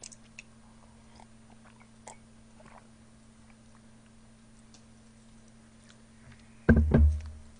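Faint drinking and mouth sounds, small soft clicks of sipping and swallowing from a glass mug, then a loud low thump near the end.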